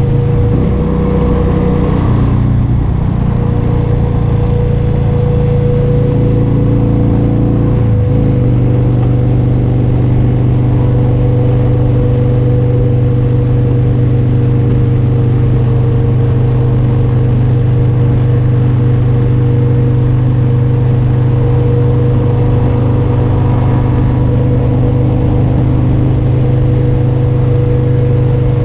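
Motorcycle engine running at a steady cruise on the road, its note changing about two seconds in and again about eight seconds in, then holding steady.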